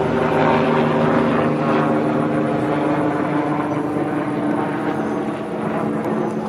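A motor engine droning steadily, its pitch shifting up within the first second.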